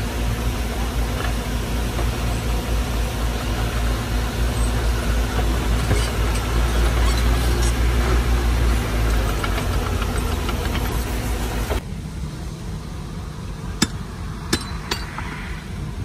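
Heavy diesel engine of earthmoving machinery running steadily with a deep rumble. About twelve seconds in it drops off abruptly to a quieter background, in which a few sharp knocks sound near the end.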